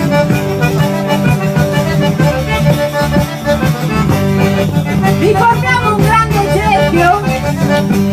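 Accordion music: held low chords under a moving melody line.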